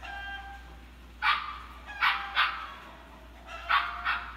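Husky puppies barking: a short whine at the start, then five sharp barks, mostly in quick pairs.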